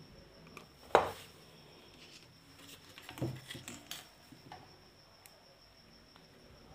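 Small knocks and clicks of a soldering iron and a circuit board being handled on a workbench: one sharper knock about a second in, then a few lighter taps around three to four seconds in.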